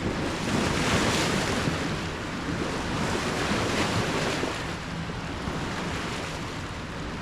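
Wind buffeting the microphone over a rush of water, with a faint low steady hum underneath. The noise is loudest about a second in.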